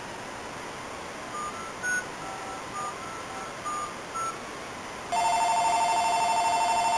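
A phone's keypad tones as a number is dialed, about ten short two-note beeps, followed about a second later by a steady ringing tone as the call rings through.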